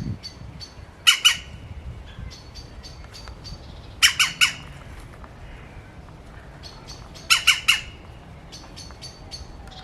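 Birds squawking at a cat: three bursts of two to four harsh calls each, a few seconds apart, with a smaller bird chirping quickly and steadily between them.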